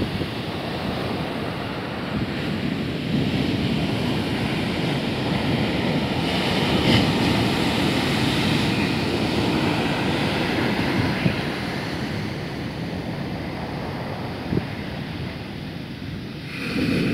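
Rough sea surf breaking and foaming up a sand beach: a steady rush of noise that swells louder for a few seconds and eases off again near the end.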